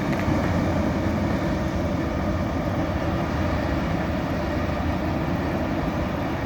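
Freight train rolling past: a steady low rumble and rail noise from the cars, with no horn sounding.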